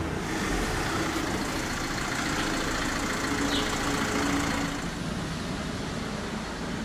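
A motor vehicle's engine running in the street, with road noise, dropping off about five seconds in.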